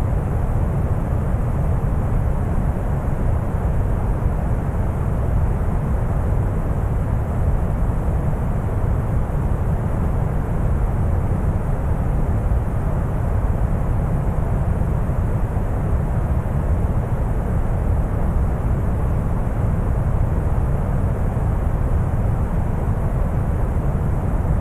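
Deep brown noise: a steady, even rumble, heaviest in the low end and dull above, with no changes.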